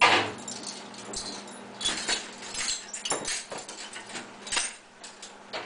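Jack Russell terriers vocalizing in several short bursts around an open dishwasher, with a few sharp clicks from plates in the rack, over a steady low hum.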